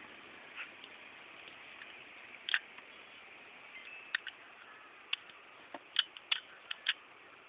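A scattering of light, sharp clicks and taps over a steady hiss, most of them bunched between about four and seven seconds in, typical of small hard parts being handled.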